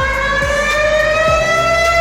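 Emergency alert siren, the Malaysia alarm: a wailing tone with several overtones, climbing slowly in pitch and levelling off near the end.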